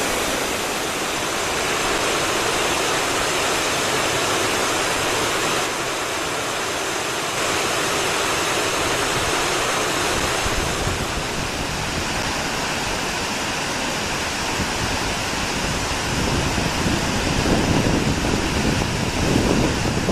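Steady rushing of a waterfall, a dense even noise of falling water. In the last few seconds gusts of wind buffet the microphone with an uneven low rumble.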